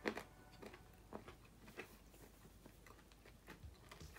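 Faint chewing of soft cheese bread, with scattered small mouth clicks and smacks. The sharpest click comes right at the start.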